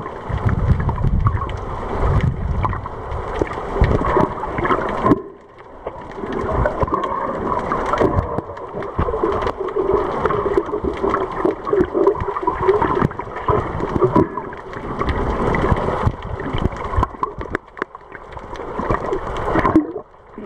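Muffled underwater water noise from a submerged camera: continuous swishing and gurgling of water moving around the camera as the snorkeller swims. It briefly drops away about five seconds in and again near the end.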